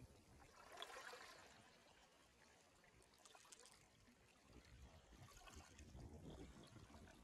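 Faint small waves lapping at a pebble shore, washing in and out in gentle swells.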